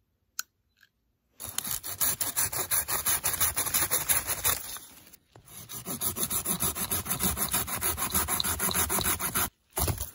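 Folding pruning saw cutting through a dead branch: quick, rasping back-and-forth strokes in two long bouts, with a brief pause about halfway.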